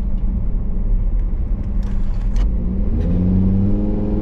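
Car engine and road rumble heard from inside a moving car; about three seconds in, the engine note rises as the car speeds up and then holds steady.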